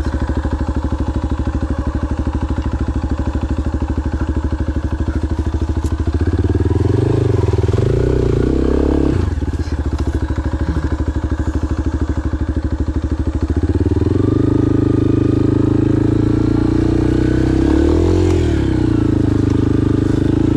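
Adventure motorcycle engine running while riding, a steady low pulse whose revs rise and fall with the throttle, with a sharp drop in revs about nine seconds in.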